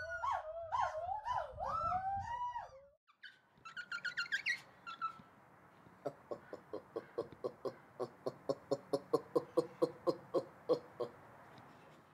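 Gibbons singing: a string of whooping notes that swoop up and down, a few rising notes, then a long run of short hoots, about four a second, growing louder toward the end.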